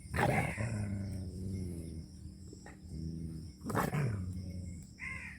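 A dog barking three times, each bark loud and sharp with a falling tail, with low drawn-out growls between the barks.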